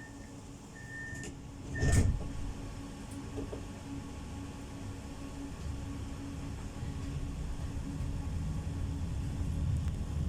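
Inside a Pesa tram: short door-warning beeps, then the doors shut with one loud knock about two seconds in. The tram then moves off, with a steady low hum and a rumble that grows louder as it gathers speed.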